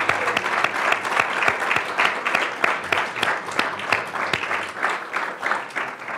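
Audience applauding, a dense spread of many hands clapping that begins to thin and fade near the end.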